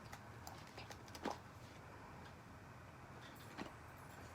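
A few light clicks and taps of small items being handled, the loudest about a second in and another near the end.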